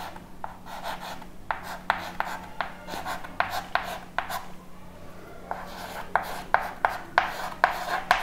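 Chalk writing on a chalkboard: a quick run of sharp taps and short scratches as letters are written, with a pause of about a second halfway through before the writing starts again.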